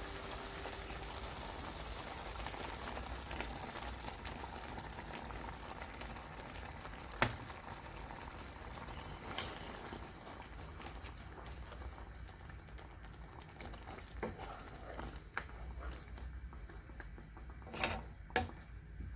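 Meatballs cooking in a pan, a steady hiss of sizzling and bubbling that thins out about halfway through. A few sharp clicks break in, the loudest two near the end.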